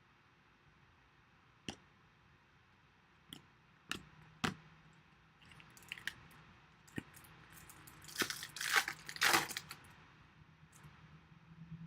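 Foil trading-card pack wrapper crinkling and tearing, with several sharp clicks and taps of cards being handled. The crinkling is loudest about eight to nine and a half seconds in.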